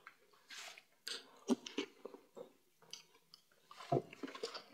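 Close-up chewing and wet mouth sounds of people eating fufu with palmnut soup and meat, in short, irregular clicks and smacks.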